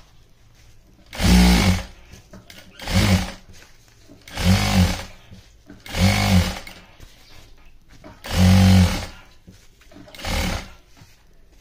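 JACK industrial lockstitch sewing machine stitching in six short runs, each about half a second to a second long, stopping between runs while the fabric is guided.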